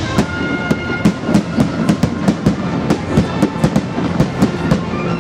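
Fireworks bursting in quick succession: an irregular string of sharp bangs, about three or four a second.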